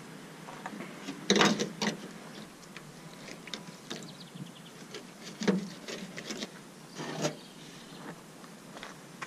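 Knife and fish being handled on a metal pickup-truck bed during filleting: a string of short taps, scrapes and knocks, loudest in a cluster about a second and a half in and again around five and a half and seven seconds.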